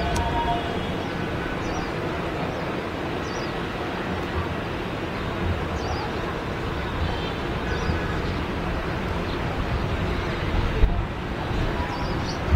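Twin rear-mounted jet engines of a regional jet on final approach and landing flare, giving a steady rumble.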